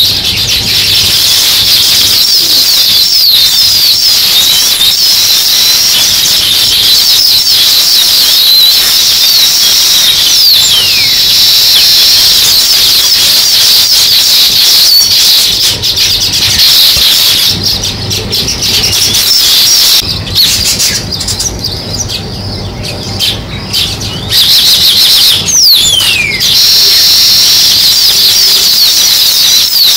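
A flock of house sparrows chirping, many short chirps overlapping in a dense continuous chorus. The chirping thins out for a few seconds past the middle, then the full chorus comes back.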